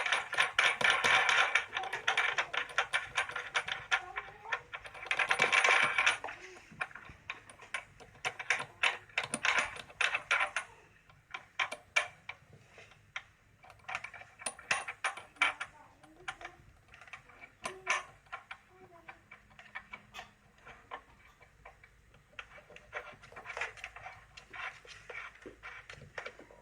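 Rapid clicking and clattering of hose fittings as an oxygen cylinder's pipe is attached to a transport ventilator's oxygen inlet port. The clicks come in several dense bursts, with quieter scattered ticks between them.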